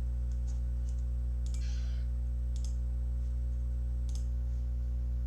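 Steady low electrical hum with a few faint, scattered clicks and a brief soft hiss.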